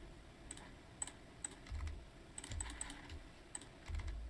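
Computer keyboard keys pressed in scattered single taps, with a quick run of several taps about two and a half seconds in, over a few low thuds.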